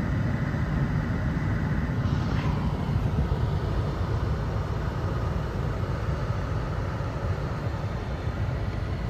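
Steady engine and tyre rumble heard from inside a car's cabin as it drives slowly along a wet dirt road.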